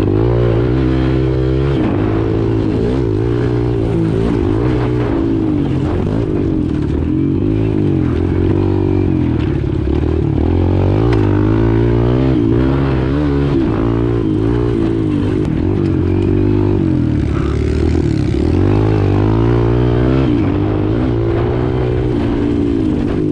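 Kawasaki KLX pit bike's single-cylinder four-stroke engine, heard from on the bike, revving up and down continuously as it is ridden through the turns of a dirt track.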